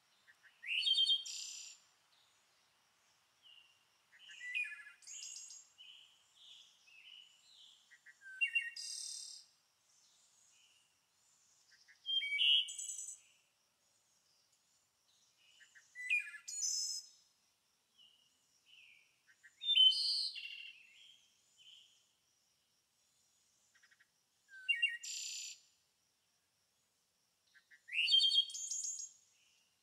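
A songbird sings a short, quick, twittering phrase about every four seconds, eight times in all, with quiet gaps between.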